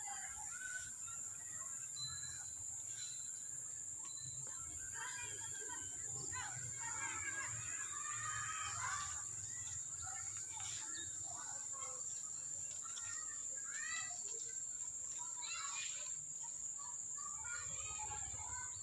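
Outdoor garden ambience: scattered bird chirps over a steady high-pitched insect drone, with a low background rumble.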